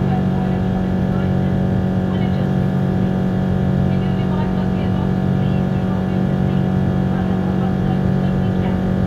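Cabin noise of a Boeing 777-200 in flight after take-off: a steady, even drone from its Rolls-Royce Trent engines and the airflow, with a strong low hum.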